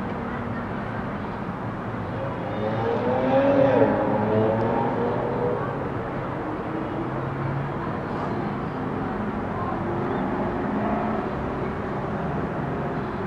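Steady outdoor city traffic hum. A louder wavering, pitched sound swells and fades between about three and six seconds in.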